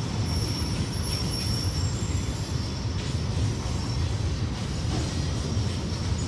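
Freight train of covered BCNHL box wagons rolling past close by: a steady rumble of steel wheels on rail, with faint high-pitched wheel squeal over it.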